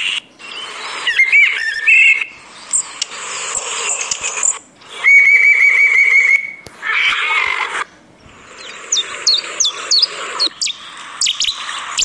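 Recorded calls of several different bird species played back one after another, each clip starting and stopping abruptly. It opens with chirps and whistled notes, has a steady rapid trill about five seconds in, and near the end a run of quick, high, falling notes.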